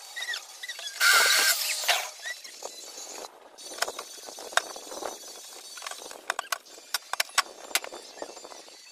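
Hand work on an aluminium window frame with its glass pane: a loud scraping rasp about a second in, then scattered sharp clicks and taps of metal and glass being handled.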